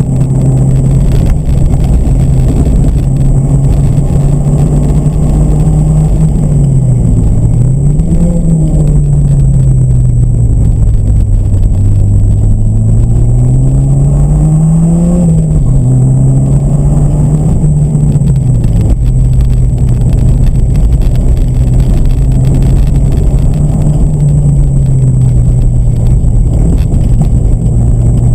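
Competition car's engine heard from inside the cabin while driven hard, its note rising and falling with the throttle and dropping sharply a few times, over a heavy low rumble.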